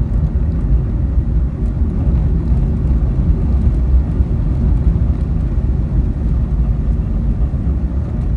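A car being driven, heard from inside the cabin: steady low engine and road rumble.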